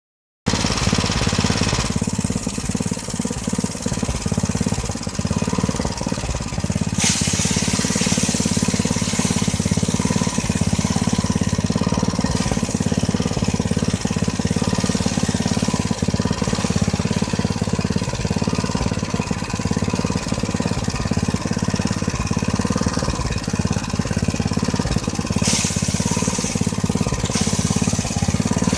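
Rice threshing machine running steadily with a dense, rapid rattle, and two louder bursts of high hissing, one about seven seconds in and one near the end.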